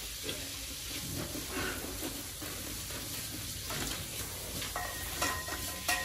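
Piglets in a wet concrete pen: a steady crackling, sizzle-like noise with a few brief scuffs, and a short steady high tone from about five seconds in.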